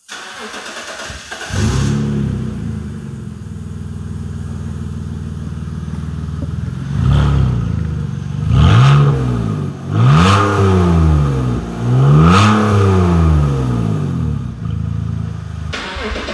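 2004 BMW 330Ci's 3.0-litre inline-six running with no exhaust behind the catalytic converters (straight from the cats). It starts up, idles steadily, is revved about four times, each rev rising and falling in pitch, then settles back to idle.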